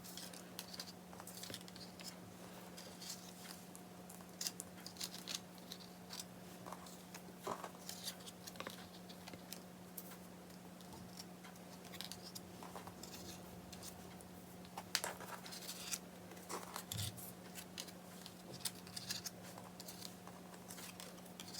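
Photocards and album packaging being handled: faint, irregular light clicks and scrapes of card and plastic, over a steady electrical hum.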